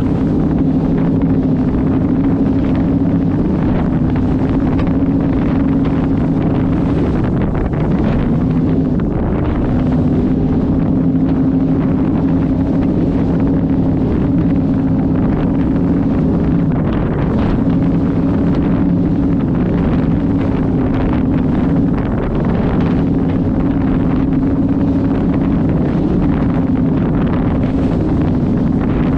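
Powerboat engines running hard at speed, a steady drone that sags briefly a few times, mixed with wind buffeting the microphone and rushing spray.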